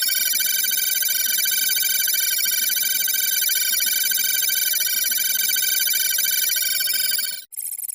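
A loud, steady electronic sound effect of several held tones, with a higher tone slowly sweeping up and down above them; it cuts off sharply near the end, and a quieter, different electronic sound follows.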